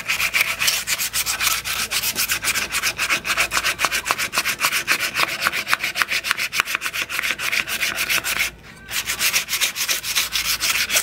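Sandpaper rubbed by hand in quick back-and-forth strokes over a yellow Kranhoung wood knife handle, with a short pause about three-quarters of the way through.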